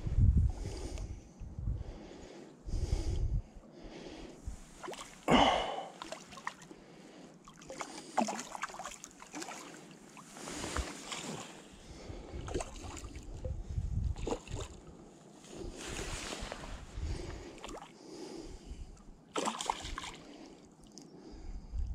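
Gusty wind buffeting the microphone, with water lapping and small splashes breaking the surface close by. The sharpest splash comes about five seconds in.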